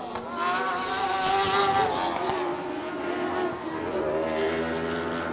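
Engines of several short-course off-road race trucks running hard around a dirt track, more than one engine note at once. The pitch climbs soon after the start, drops around two seconds in and climbs again about four seconds in as they accelerate and back off.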